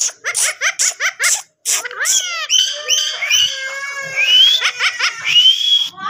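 Indian ringneck parakeet calling: a quick run of short, sharp squawks for about the first second and a half, then a denser stretch of chattering calls and whistles that slide in pitch.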